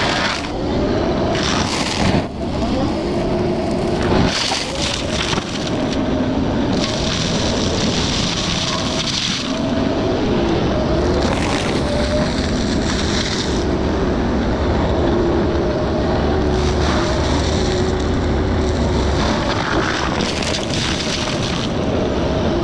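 Excavator diesel engine running under load, driving a forestry mulcher head that grinds through brush. The engine's pitch wavers, and repeated bursts of harsher grinding noise come every few seconds.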